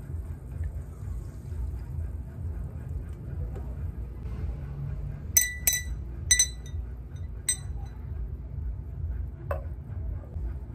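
A glass drinking straw clinking against glass: four bright, ringing clinks within about two seconds around the middle, then one duller knock near the end.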